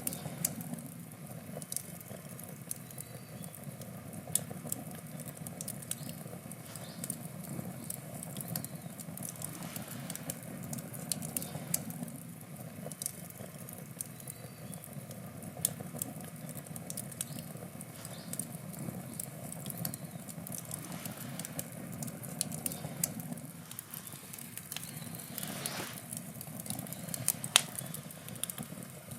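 Wood campfire burning: a steady low rush of flame with frequent sharp crackles and pops from the burning wood, one louder pop near the end.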